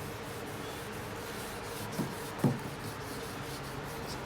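Wet sanding a painted car hood by hand with 1000-grit sandpaper and soapy water: a steady rubbing hiss. Two dull knocks about half a second apart come near the middle.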